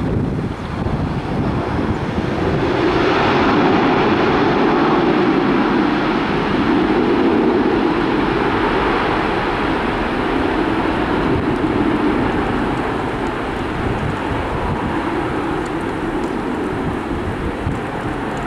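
Boeing 737-900ER's CFM56-7B jet engines on the landing roll just after touchdown: a loud rushing noise that swells about two seconds in, holds for about ten seconds as the engines go into reverse thrust, then eases off as the jet slows.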